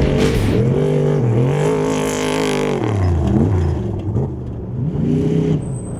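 Off-road race vehicle's engine revving hard. The pitch climbs and holds, drops about three seconds in, then climbs again and falls away near the end.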